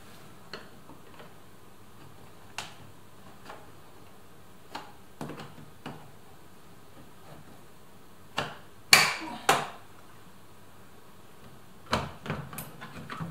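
Scattered small clicks and knocks of hand work at a car door's plastic interior trim, with a louder clatter of three knocks about two-thirds of the way in and another short burst of clicks near the end.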